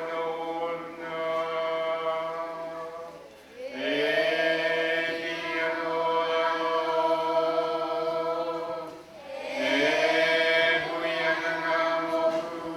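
A man's voice chanting in long held phrases: three phrases, each sliding up at its start and then holding one pitch for several seconds.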